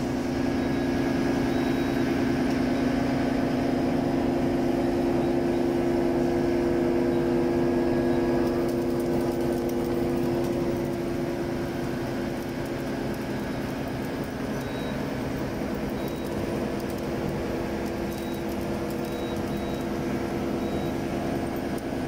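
Okuma LB35-II CNC lathe powered up and running, a steady machine hum with two strong low tones, easing slightly about halfway through.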